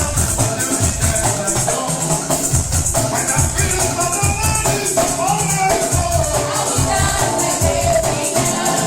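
Lively praise music with shakers rattling in a steady beat over bass drum pulses and a melody line.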